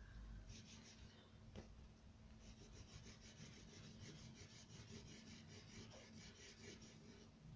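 Wax crayon rubbing on paper in quick back-and-forth strokes, about five a second, as pink is hatched on: a faint, even scratching.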